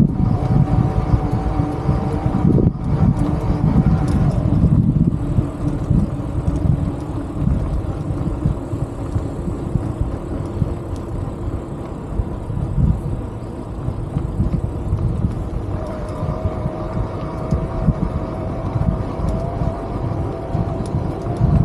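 A motor vehicle's engine running steadily, with a low rumble that comes and goes. A hum from the engine fades about four seconds in and returns near the end.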